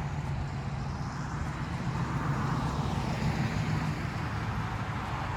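A motor vehicle's rumble going by, swelling a little about two to three seconds in.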